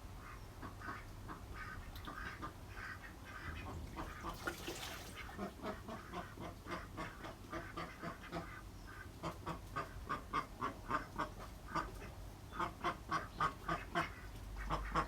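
Ducks quacking in quick runs of short calls, about three or four a second, growing louder and more regular in the second half.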